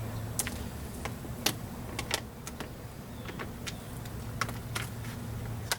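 Plastic moisture barrier being peeled slowly off a car door's inner panel, giving scattered crackles and sharp clicks over a steady low hum.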